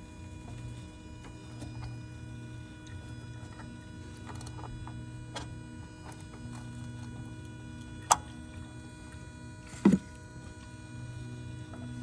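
Newly fitted electric inverter coolant pump on a 2nd-generation Toyota Prius running with a steady low hum, circulating coolant as it should. Two sharp clicks about eight and ten seconds in.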